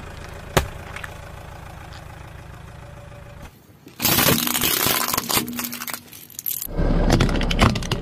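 Car tyre rolling over and crushing objects: a single sharp pop about half a second in, then loud crackling and crunching of breaking plastic from about four seconds in, in two stretches with a short break between them.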